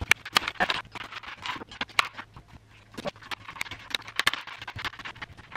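Kitchen knife chopping a shallot and a red chilli on a cutting board: many quick, irregular taps of the blade striking the board.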